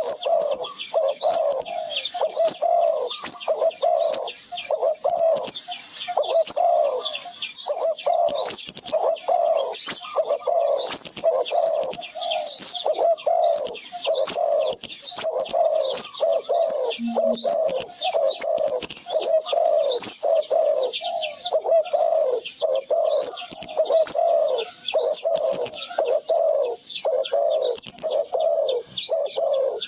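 Dense bird chorus: quick high chirps over lower cooing calls, repeating about two to three times a second without a break.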